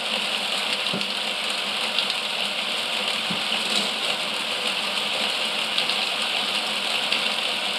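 Motorised Mould King 11012 brick-built roller coaster running: a steady rattle of its motor drive and plastic cars on the track.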